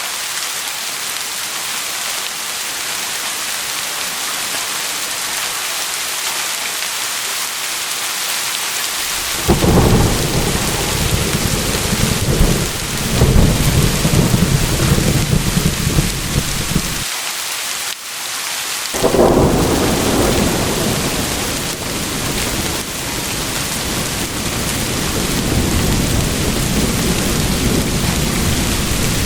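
Steady rain hissing throughout. About a third of the way in, thunder starts a deep, rolling rumble that breaks off abruptly. A second long rumble follows shortly after and slowly dies away near the end.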